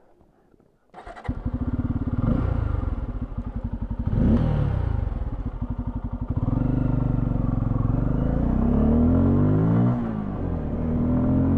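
Bajaj Pulsar F250's 249 cc single-cylinder engine starting up about a second in and idling, with one short rev about four seconds in. It then pulls away, rising in pitch, dropping once near the end and rising again.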